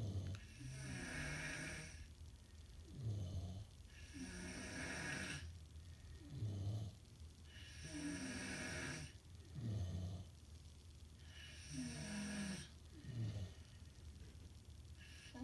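Snoring in slow, regular breaths, about one every three and a half seconds. Each breath is a low rattling snore followed by a breathy hiss.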